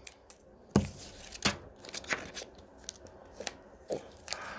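Scissors cutting paper: a string of short, sharp snips at an irregular pace, with the sheet rustling near the end.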